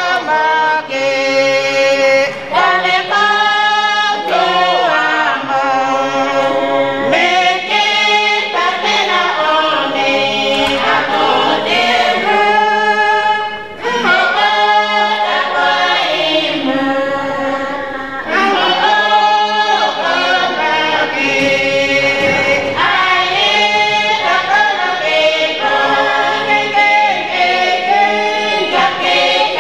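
A group of people singing a song together in continuous phrases, with a short pause about halfway through.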